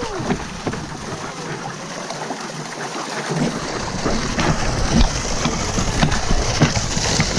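Water splashing and sloshing as it is scooped and thrown by hand from buckets, with a low rumble on the microphone from about halfway.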